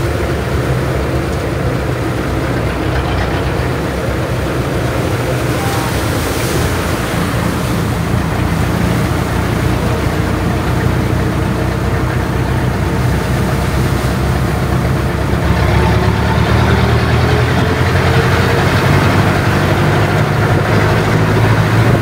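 Jeepney engine running steadily under way, heard from inside the passenger cabin, getting somewhat louder in the second half.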